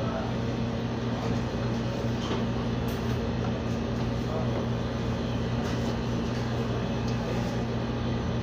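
Steady low machine hum over a constant background rush, with a few faint clicks.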